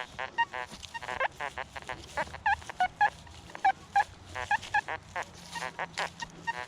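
Birds, goose- or duck-like waterfowl, giving many short honking calls in quick succession, several a second.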